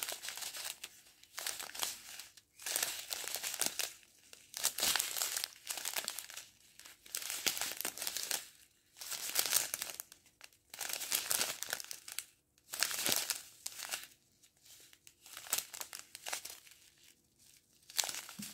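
Small clear plastic bags of square diamond-painting drills crinkling as they are handled, in irregular bursts a second or so apart with short pauses between.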